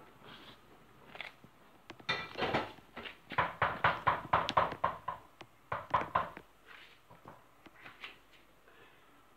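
A spoon scraping sauce out of a frying pan into a bowl: a quick run of short scrapes and knocks, densest in the middle, about five a second.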